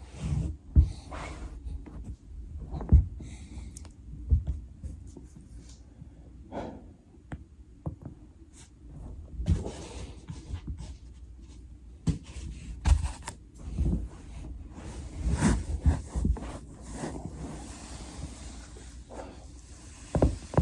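Foam rolling: a body shifting on a foam roller, with irregular thumps, scraping and sharp clicks.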